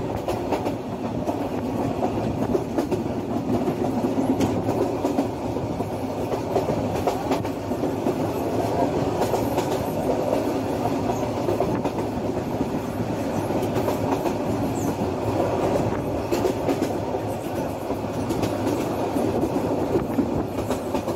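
Passenger train running at speed: a steady rumble of the wheels on the track, with faint clicks from the rail joints.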